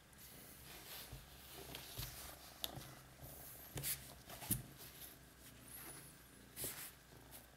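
Domestic cat purring steadily while being stroked, with a few soft rustles and light taps over it.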